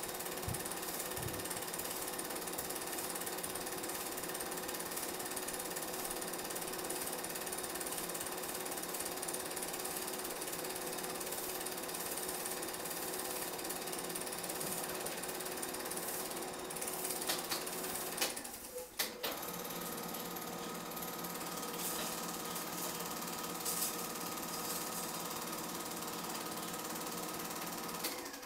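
Film projector running: a steady mechanical clatter and whir that briefly drops out about two-thirds of the way through, then resumes.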